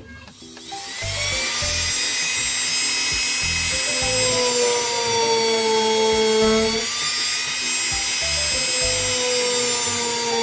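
Homemade drill built from a 12 V 100 W DC motor with a 1 mm bit in its chuck, switching on about a second in, its whine rising briefly as it spins up and then running steadily at full speed.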